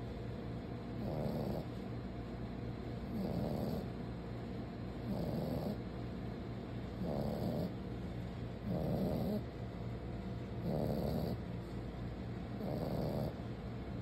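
French bulldog puppy snoring in its sleep: a steady rhythm of breathy snores about every two seconds, seven in all.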